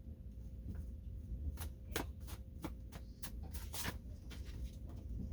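A quick run of about ten light clicks and taps from about a second and a half in, lasting some two and a half seconds, over a low steady hum.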